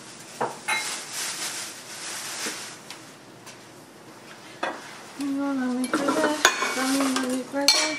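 Glasses and dishes clinking with scattered sharp knocks and rustling as glassware is put away in a kitchen cabinet. From about five seconds in, a person's voice comes in without clear words, with held and bending tones like humming.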